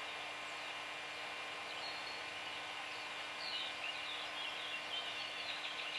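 Small birds chirping and twittering over a steady outdoor background hiss, with the chirps coming thicker in the second half. A faint steady low hum runs underneath.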